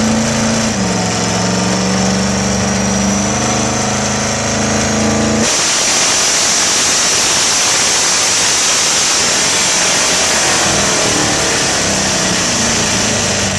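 Plymouth Duster drag car on a chassis dyno, its engine running at a steady speed with a thin whine slowly rising above it. About five and a half seconds in, the sound changes suddenly to a loud, even rush as the car is run hard on the dyno rollers.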